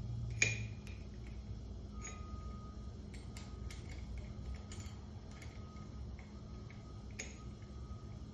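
Scattered light clicks and taps of screws and hand tools being handled against the welding positioner's metal jaws and plate, over a steady low hum.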